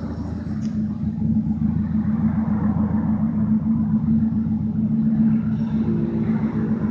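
Mazda 323 engine running steadily through an exhaust whose rear muffler has been replaced by a plain straight pipe, giving a low, steady rumble from the tailpipe.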